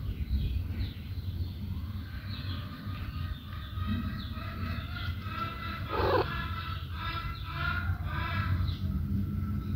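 Chickens calling and clucking again and again in the background over a steady low rumble.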